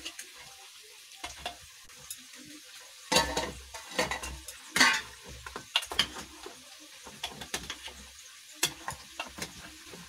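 Metal spoon clinking and scraping against a steel bowl, with sticky, wet handling sounds, as fried chandrakala gujiya are turned and coated in sugar syrup. The knocks come in irregular clusters, loudest a few seconds in and again near the end.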